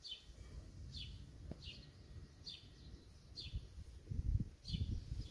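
A bird calling over and over, short falling chirps roughly once a second, over a low rumble that swells about four seconds in.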